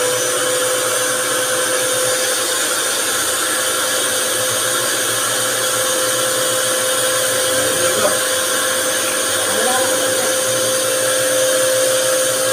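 Compact electric pressure washer running steadily: its motor and pump give a constant whirring hum with a hiss over it, while the lance is not spraying.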